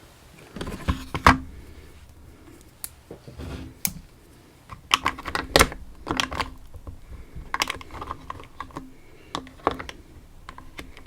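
Small metal parts and tools being handled on a bench: irregular clusters of sharp clicks and light clatters, several groups spread through the stretch with short pauses between them.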